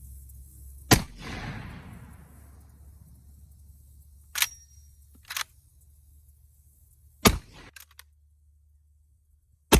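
Original Winchester Model 1887 lever-action 12-gauge shotgun firing birdshot: three loud shots, about a second in, about seven seconds in and at the very end. The first echoes away slowly. Between shots come quieter metallic clacks as the lever is worked to eject and chamber a shell.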